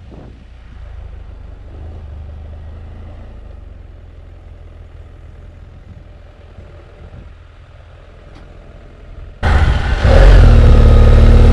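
Motorcycle engine running: a low, fairly quiet rumble at first, then a sudden jump about nine seconds in to a loud, close-up engine note with a steady pitch.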